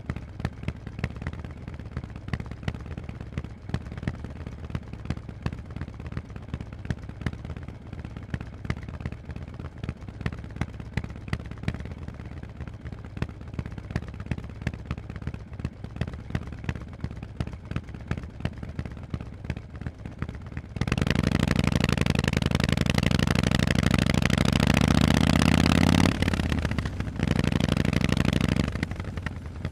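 Harley-Davidson Forty-Eight's air-cooled V-twin through Vance & Hines pipes, first running at low revs with an uneven, loping string of sharp exhaust pulses. About two-thirds of the way through, the throttle opens and it gets much louder, its pitch climbing steadily as it pulls; a brief dip (a gear change) is followed by more throttle, then it drops back to low revs near the end.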